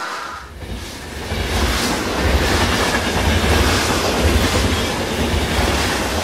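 Running sound of a Pennsylvania Railroad GG1 electric locomotive pulling a train: a steady low rumble with rail clatter and hiss, which builds up over the first two seconds and then holds.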